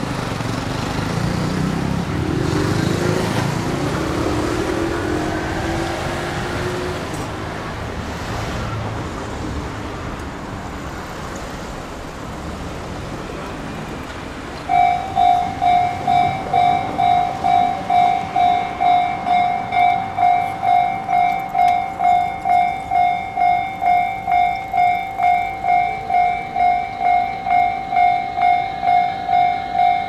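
Road traffic passing over a level crossing, then about halfway through the crossing's electronic warning bell starts ringing, a loud high-pitched ding repeating about twice a second, as the barriers come down for an approaching train.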